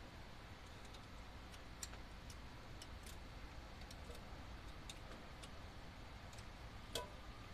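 Faint, irregular light clicks and taps from the exposed rocker arms and valvetrain as they are felt and wiggled by hand with the valve cover off, the loudest click near the end.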